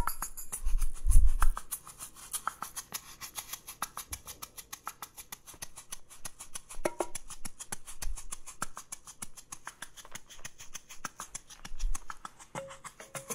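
Percussion sounds played by an inmuRHYTHM interactive sensory cushion: fast, even, soft ticking, with a loud low drum thump about a second in and a couple of fainter thumps later.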